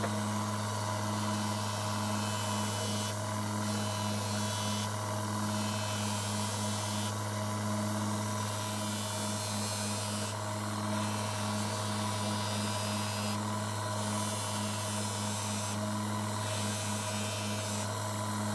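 Bench grinder's electric motor running steadily with a strong hum, spinning a rubber-faced wheel while a small knife blade is held against it for sharpening. A hiss comes and goes every second or two.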